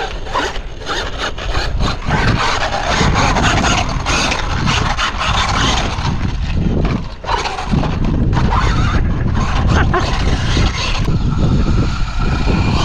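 Traxxas X-Maxx 8S RC monster truck driving hard over grass and dirt: a loud, busy mix of electric drive noise and tyre and ground noise, surging up and down, with a brief drop about seven seconds in.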